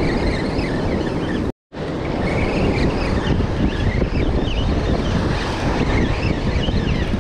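Wind buffeting the microphone over breaking surf. The sound cuts out completely for a split second about one and a half seconds in.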